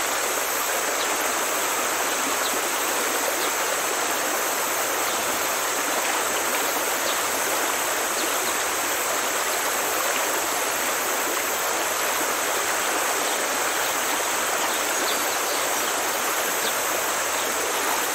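Running water, like a flowing stream: a steady, even sound that does not change throughout.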